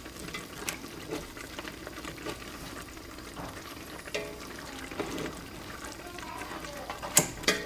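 Metal tongs clicking and knocking against a pot as braised lamb shanks are turned over in their yogurt gravy, with soft wet stirring sounds; the sharpest knock comes near the end.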